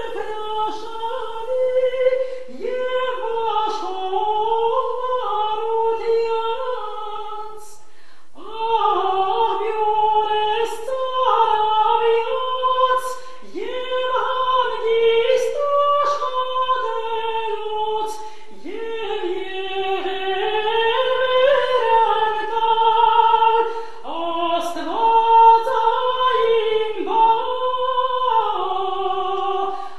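A woman singing alone and unaccompanied, a slow, ornamented melody in long phrases, with short pauses for breath about a quarter and two-thirds of the way through.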